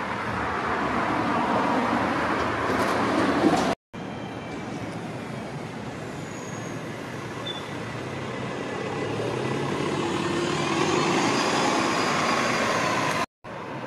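Street traffic: motor vehicles running and passing, the noise growing louder toward the end as a vehicle draws close. The sound drops out completely for a moment twice.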